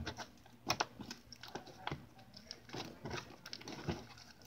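Slime with beads mixed into it being squished and kneaded by hand, giving irregular small clicks and crackles.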